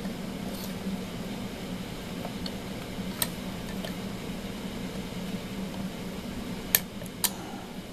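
A few small metallic clicks as a hex key works the set screws of shaft collars on a rod: a faint one a little past three seconds in, then two sharper ones about half a second apart near the end. A steady low hum runs underneath.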